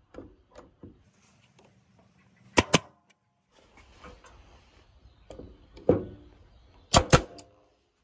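Tacklife pneumatic brad nailer firing brads into MDF twice, each shot a sharp double crack, the second about four seconds after the first. Lighter knocks come in between.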